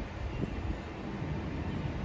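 Wind gusting on the microphone over a low rumble from an SMRT C151 train just beginning to pull out of an elevated station.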